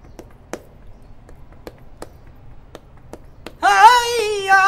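Flamenco finger snaps (pitos): sharp single clicks at an uneven, unhurried pace. About three and a half seconds in, a flamenco singer's voice comes in loudly on a long, wavering held note.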